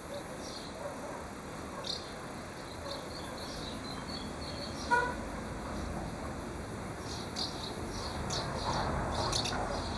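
Outdoor ambience of scattered short, high chirps that come thicker near the end, with one brief pitched call about five seconds in.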